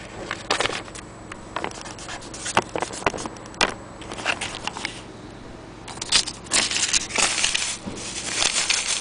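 Handling noise: irregular clicks and light knocks, with longer rustling stretches from about six seconds in.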